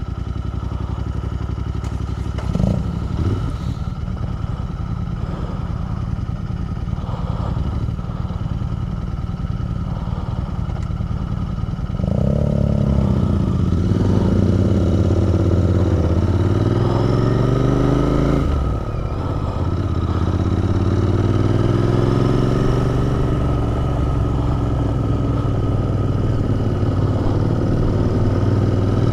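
Royal Enfield Interceptor 650's parallel-twin engine idling steadily, with a short clunk about two and a half seconds in. About twelve seconds in the bike pulls away and accelerates, the engine note rising, dropping briefly at a gear change, then rising again.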